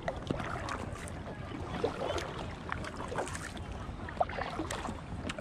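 Water splashing and dripping from the paddle of an Intex Explorer K2 inflatable kayak, with water lapping at the hull and small irregular clicks, two of them a little louder, about two and four seconds in.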